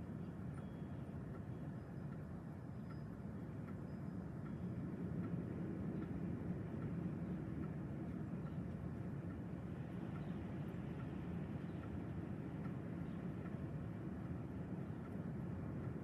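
Strong gusty wind blowing, a steady low rushing rumble that grows a little louder about five seconds in.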